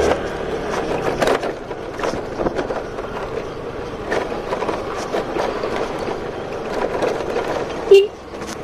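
Scooter rolling over a rough village road with its engine hum dropped away, body panels and parts rattling and clattering. About eight seconds in there is one short, loud beep.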